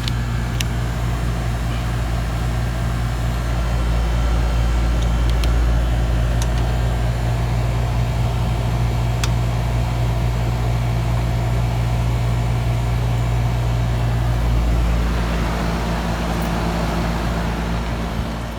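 Outdoor condensing unit of a 16-year-old Trane R22 air-conditioning system running: a steady compressor hum with the condenser fan, with a faint hiss rising over the last few seconds. The system is low on refrigerant charge.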